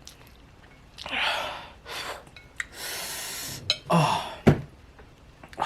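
A man gasping and breathing hard through the mouth, drawing air in and out against the burn of extremely spicy ghost pepper noodles, with a short voiced groan about four seconds in.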